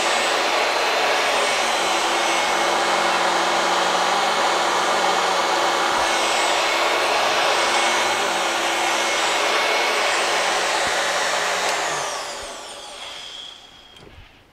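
Royal 884 upright vacuum cleaner running steadily as it is pushed over carpet: an even rush of airflow with a steady motor hum. It is switched off about twelve seconds in, and the motor winds down with a falling whine over the next two seconds. The machine is 30 years old and freshly repaired, and it is working really well.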